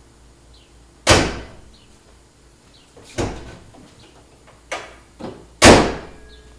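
A series of five sharp bangs and knocks, the two loudest about a second in and near the end, like a vehicle's hood or door being slammed shut.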